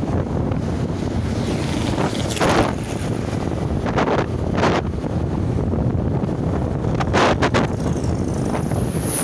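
Wind rushing over the microphone of a camera on a moving motorcycle, over the running noise of the bike, with sharper gusts every second or two and a brief high whine near the end.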